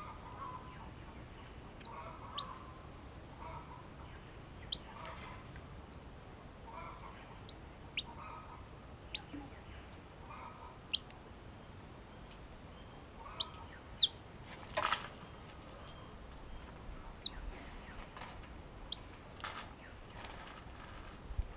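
Caged yellow-cheeked tit giving short, thin, high call notes that slur downward, one every second or two, with fainter lower chattering notes in the first half. A brief rustle of wings a little past the middle.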